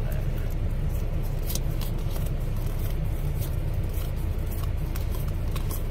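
Steady low rumble of an idling diesel truck engine, with light clicks and flicks of trading cards being handled and flipped through.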